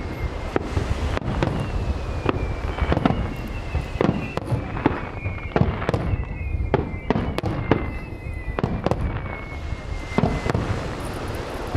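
Aerial fireworks shells bursting: a steady run of sharp bangs and booms, several a second at times, over a continuous low rumble. A high whistling tone slowly falls in pitch through most of it.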